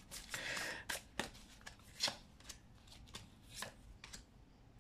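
A deck of tarot cards handled by hand: a short shuffling rustle near the start, then scattered soft snaps and slaps as cards are drawn from the deck and laid down on the spread.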